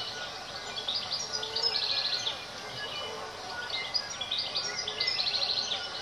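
New Zealand bellbirds singing: a stream of clear, sweeping high notes, with a quick run of rapidly repeated notes about two seconds in and again near the end.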